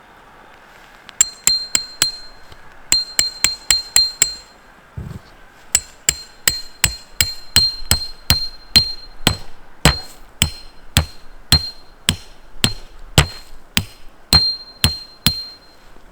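Hammer driving a metal tent peg: sharp metal-on-metal blows, each with a short ringing note. Two quick runs of strikes come first, then steady blows about two a second.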